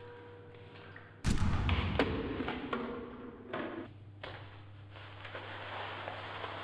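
Pistol gunshot sound effect: one loud shot about a second in, with a long decaying tail and a few fainter knocks inside it, then a second, sharper crack about four seconds in. A low steady drone holds underneath.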